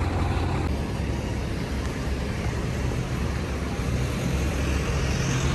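Street traffic: a steady low rumble of vehicle engines and tyres, with no single distinct event.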